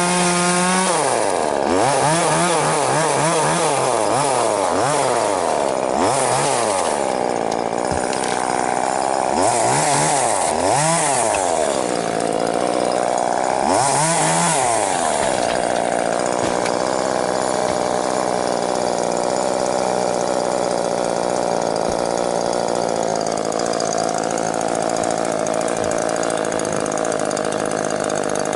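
Two-stroke chainsaw revving up and down repeatedly, then running at a steady speed from about halfway through.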